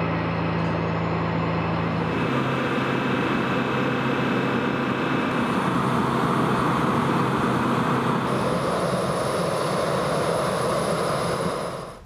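Military aircraft engines running steadily, a loud rush with a low hum whose pitch shifts about two seconds in. The sound cuts off abruptly just before the end.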